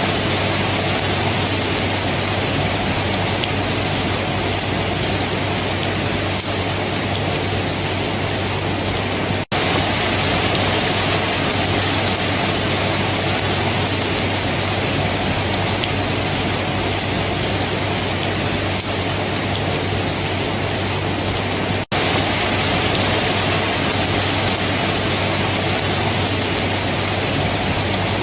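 Steady, heavy rain falling, an even hiss of water on surfaces. It cuts out for an instant twice, about nine and about twenty-two seconds in.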